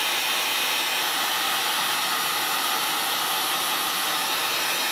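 Heat gun blowing steadily, a constant rush of air, as it shrinks thin heat shrink tubing onto the tip of a pole.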